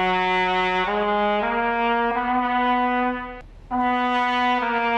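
Solo trumpet playing slow held notes in its low register. The notes step upward, then after a short breath about three and a half seconds in, a new phrase steps back down.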